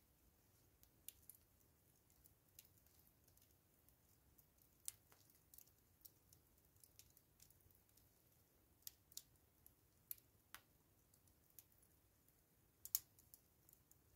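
Charcoal embers crackling faintly: sparse, irregular sharp pops over a quiet background, with a louder double pop near the end.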